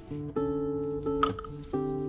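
Background music of strummed acoustic guitar chords, with one short sharp click a little over a second in.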